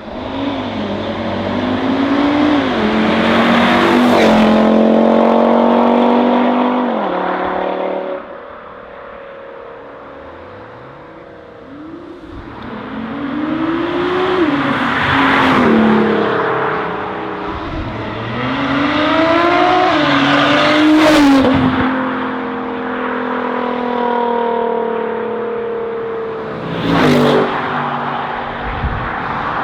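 Sports cars accelerating hard past one after another, each engine's pitch climbing, dropping at an upshift and climbing again. There are several loud pass-bys with a quieter gap between the first and second, and a short sharp burst near the end.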